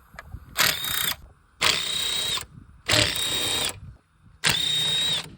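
Cordless impact tool spinning out the four 5/16 bolts holding an engine cover: four short bursts of motor whine, one per bolt, each stopping abruptly.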